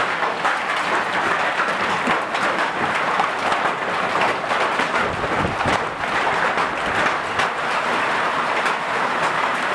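Hail and heavy rain pelting down, a dense, steady clatter scattered with many small sharp ticks.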